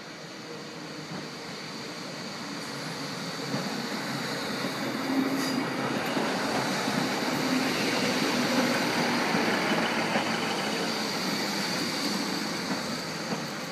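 Train passing by: a rail rumble that swells over several seconds, is loudest about two-thirds of the way through, then eases off, with a faint steady high whine above it.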